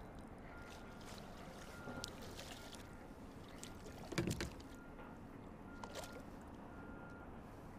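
A bass thrashing and splashing at the surface beside a kayak as it is landed by hand, with one louder splash about four seconds in and a few light knocks against the hull.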